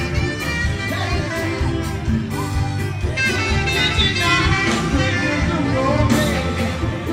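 Band music with a lead vocal singing over a steady beat of drums and bass.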